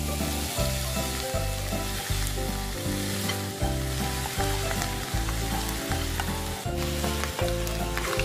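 Boiled pork hock pieces sizzling in hot oil with onion and garlic in a frying pan, stirred with a wooden spatula near the end. Background music with a steady beat plays under the sizzle.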